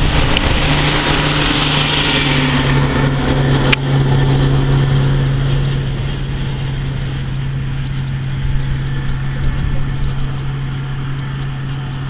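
A motor vehicle's engine running with a steady low hum, over a broad rushing noise that dies down over the first half.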